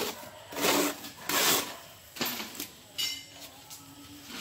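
A plastering tool scraping across cement plaster in about four short rasping strokes, followed by a brief metallic clink about three seconds in.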